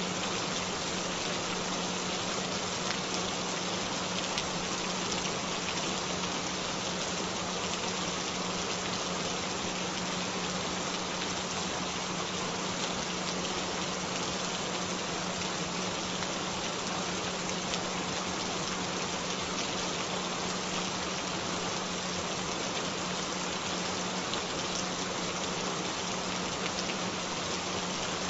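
Steady rain sound with a constant low tone, a little below 200 Hz, held beneath it: a binaural frequency tone layered over rain.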